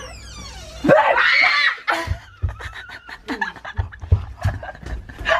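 A woman screams in fright about a second in, a loud cry lasting under a second, then breaks into laughter. Several dull thuds sound under the laughing, and another burst of shrieking laughter comes at the very end.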